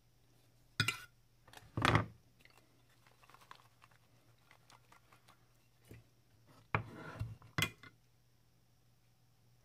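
Handling knocks of a white ceramic baking dish and a steel folding kitchen knife being set down on a wooden cutting board and against each other: two sharp knocks about a second apart near the start, then a short cluster of knocks and a clink about seven seconds in.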